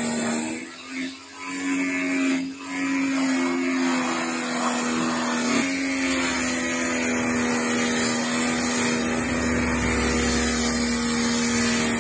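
Pressure washer running while its jet sprays water onto the rusty steel compressor tank. It is a steady machine drone over a water hiss, with two brief dips in the first few seconds.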